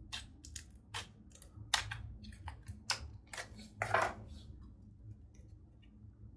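Green slime being squeezed and pressed by hand, giving a run of sharp clicky pops of trapped air over the first four seconds. The loudest is a longer crackly squelch near four seconds in, then only faint sounds as the slime is stretched.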